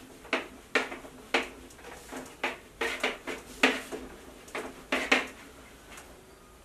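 Whiteboard eraser wiped across the board in quick strokes, about ten short sharp rubs and knocks in five seconds.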